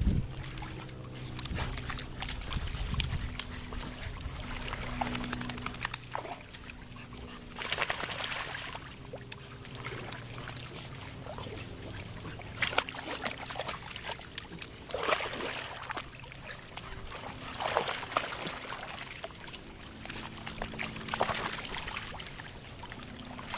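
Pond water sloshing and splashing as a yellow Labrador and its puppies wade and paddle in the shallows, with louder splashes every few seconds.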